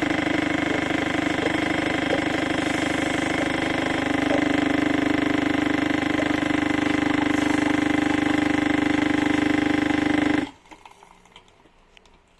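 Electric motor of a kitchen appliance running steadily at high speed, its pitch dropping slightly about four seconds in, then switched off suddenly near the end.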